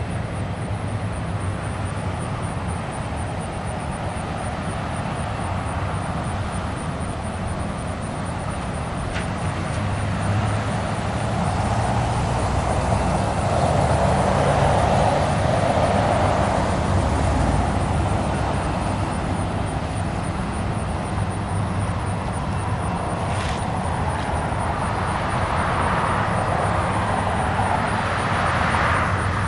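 Road traffic passing: a pickup truck drives by close, loudest about halfway through, and a car passes near the end, over a steady low hum.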